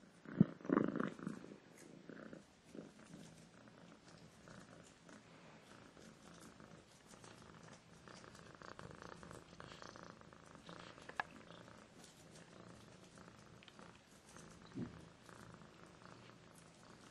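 Domestic cat purring steadily, with a short louder sound about half a second in and a faint click later on.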